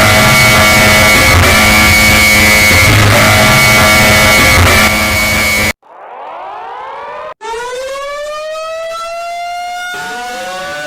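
Loud, heavily distorted music cuts off abruptly about six seconds in. An air-raid siren then winds up, rising in pitch, restarts a second and a half later and climbs to a steady wail, with a second siren joining near the end.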